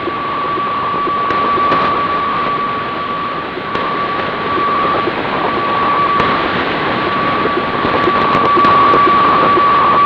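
HF weather-fax (radiofacsimile) transmission on 12.785 MHz upper sideband, heard through a Grundig 750 shortwave receiver: a steady tone over a hiss of static.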